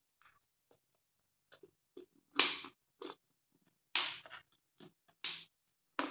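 Steel mixer-grinder jar being handled: a spoon clinking on it, then its lid set on and the clamps clicked shut. It sounds as a string of short clatters and clicks, the loudest about two and a half seconds in. The grinder motor is not running.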